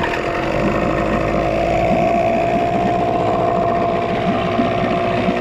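Small Yamaha two-stroke outboard motor running steadily just after being pull-started, its leg in a test tub of water.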